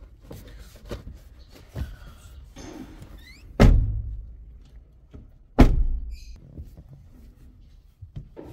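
Two heavy thuds about two seconds apart, each followed by a short low boom, among lighter clicks and knocks.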